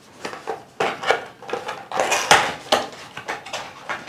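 A small cardboard box being opened and its contents handled: irregular clicks, taps and rustles of cardboard and packaging, busiest about halfway through.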